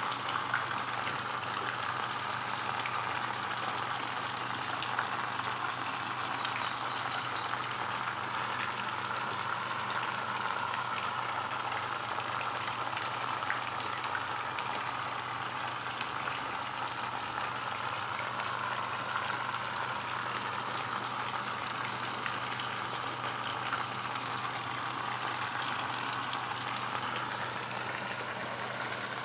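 Steady, even splashing and churning of water at the surface of a pond crowded with young koi.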